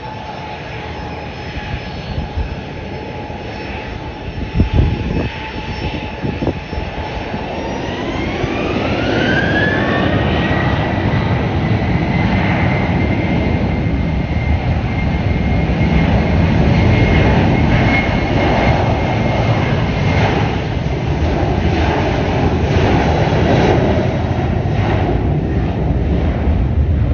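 Boeing 737 jet engines spooling up for takeoff. A steady whine climbs in pitch about eight seconds in and then holds as the engine noise grows louder and stays high. A few knocks come about five seconds in.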